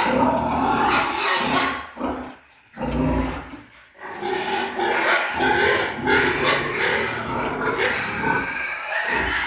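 Pigs grunting and vocalising almost without a break, with two short lulls about two and a half and four seconds in.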